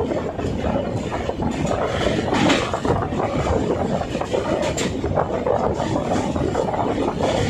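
Passenger train running across a steel truss rail bridge, heard from on board: a steady, loud rumble of wheels on the rails with dense, fast clattering.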